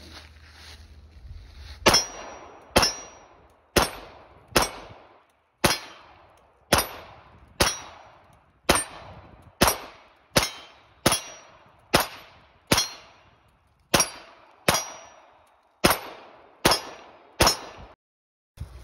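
Sig Sauer P226 XFive Classic 9 mm pistol fired about eighteen times at a slow, steady pace of roughly one shot a second. Each shot is sharp and leaves a short ringing tail.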